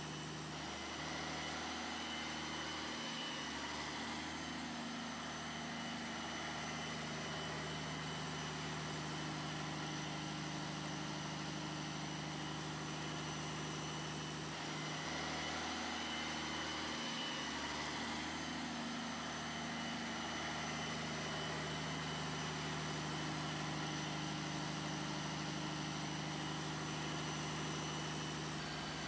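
Small electric motor of a toy boat running steadily with a low hum and a faint high whine above it.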